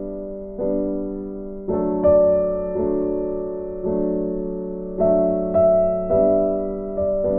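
Background music: slow, gentle solo piano, with single notes and chords struck about once a second and left to fade.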